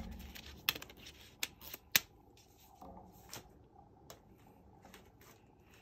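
A ring-binder cash envelope wallet being closed and handled on a wooden table: a few sharp clicks and taps in the first two seconds, the loudest near two seconds in, then quiet rustling.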